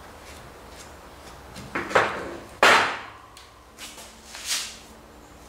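Shop rag rubbing and scraping on a steel suspension link bar, cleaning rubber residue off it, in a few short swishes. About halfway through there is one louder knock as a link bar is set down on the workbench.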